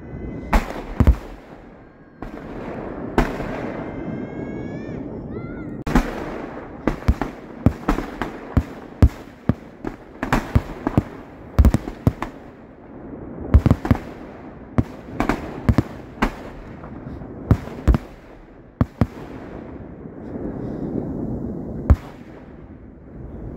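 Fireworks display: aerial shells bursting in a rapid, irregular barrage of bangs over a continuous crackle, with a brief rising whistle about four seconds in.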